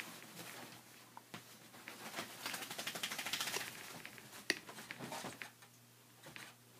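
A small dog scrabbling and digging on a bed, its paws scratching and the comforter and pillow rustling, busiest from about two to four seconds in, with a few sharp taps after.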